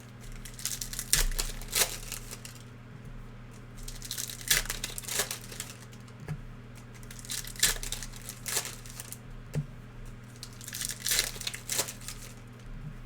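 Foil trading-card pack wrappers being torn open and crinkled, in several separate bursts, over a steady low hum.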